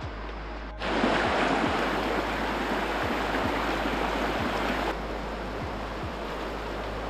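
Rushing river water over rocks, jumping louder at a cut about a second in and easing a little about five seconds in. A soft, regular low beat of background music runs underneath.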